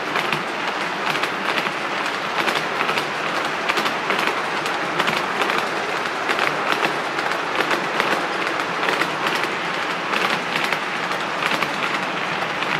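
HO scale model Auto-Train passenger and auto-carrier cars rolling past on the track: a steady rolling rattle with many quick, irregular clicks.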